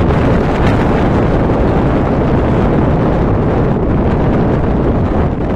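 Strong wind buffeting the microphone: a loud, steady rumbling noise with no speech.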